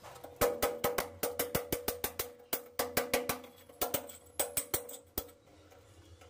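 A quick run of sharp knocks, about five a second with two short pauses, lasting nearly five seconds: a hammer striking a chisel against the brick and mortar of the wall.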